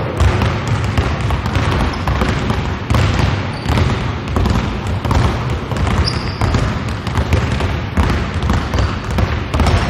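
Several basketballs dribbled at once on a wooden gym floor: a dense, irregular patter of overlapping bounces from players each handling two balls.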